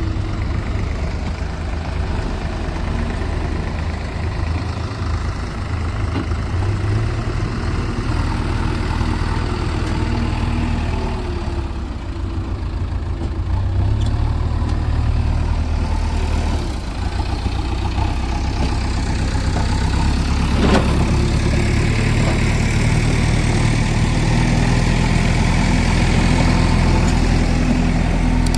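Diesel engine of a JCB 3DX backhoe loader running steadily, its note shifting now and then as the machine works, and a little louder in the last third. About two-thirds of the way through there is one brief sharp sound.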